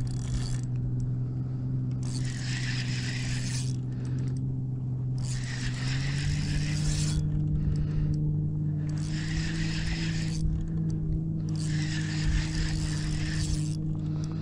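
Fishing reel being cranked in spells of a second or two with short pauses between, reeling in a hooked fish that is putting up a fight. A steady low hum runs underneath and steps up in pitch about six seconds in.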